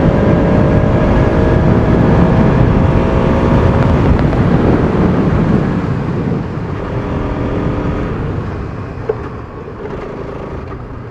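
Bajaj Pulsar RS200's single-cylinder engine running under way. It is loud for the first half, then quieter as the bike eases off about six seconds in, dropping again near two-thirds through, with a single short click near the end.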